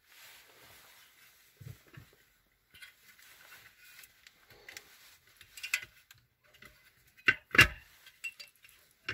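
Hands handling a new clutch pressure plate and dual-mass flywheel: light metallic clinks and rustling, then two louder knocks close together near the end.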